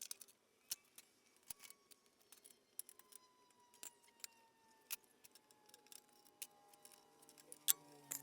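Faint, irregular metallic clicks and clinks of hand tools working bolts loose on a mini bike frame, a few sharp ones standing out near the end.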